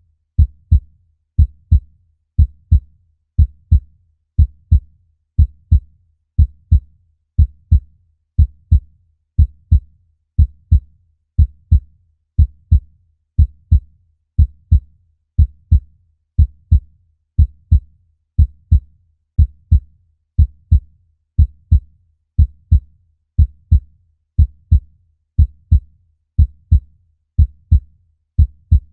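Human heartbeat: a steady lub-dub double thump, low and dull, repeating about once a second.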